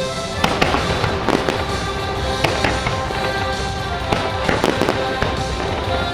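Fireworks shells bursting in a string of sharp bangs, about a dozen at uneven intervals, over loud music from the show's soundtrack.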